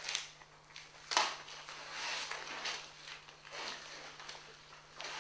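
Paper rustling and being handled in a series of short scratchy strokes, over a faint steady low hum.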